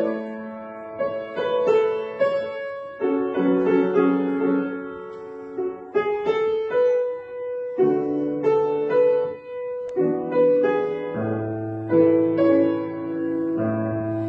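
Piano playing a slow, gentle instrumental interlude of a song, a melody over chords that change every second or so.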